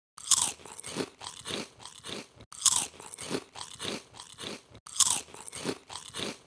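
Close-up eating of crunchy food: three loud crunching bites, about two seconds apart, each followed by quick, crackly chewing at about three chews a second. Each stretch cuts off abruptly into silence.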